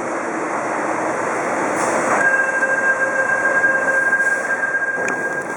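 A train running past on the tracks close by: a steady, dense rumble and rush of wheels on rail that slowly grows louder. About two seconds in, a steady high-pitched whine joins it and holds almost to the end.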